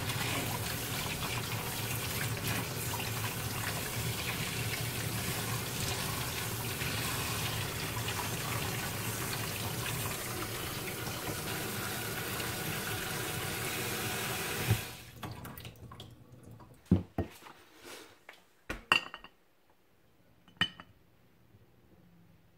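Kitchen tap running in a steady stream into a stainless-steel sink while abalone are washed under it by hand, shut off sharply about fifteen seconds in. After that come a few light knocks and clicks of handling at the counter.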